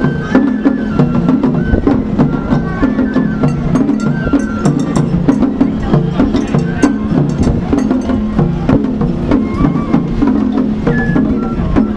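Japanese festival parade music: a stepping melody over a steady bass, with dense, sharp clicking percussion like wood blocks.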